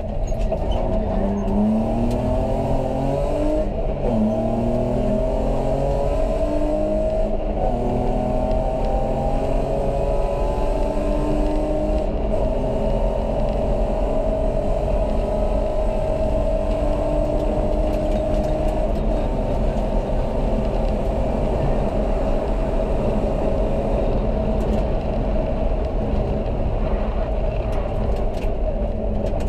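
A BMW rally car's engine at full throttle, heard from inside the cabin: it revs up through several gear changes in the first few seconds, then pulls one long, slowly rising run in a single gear before the pitch wavers over the rest of the stretch.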